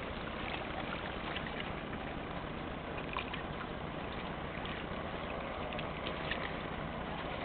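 Small waves lapping and trickling against a rocky shoreline: a steady rush with faint scattered splashy ticks.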